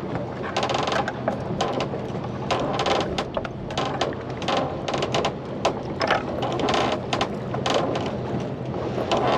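Fishing reel being cranked, its gears and pawl giving a run of irregular mechanical clicks and whirring over a steady low hum.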